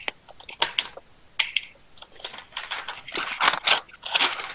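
Irregular rustling and clicking noises, denser from about two seconds in.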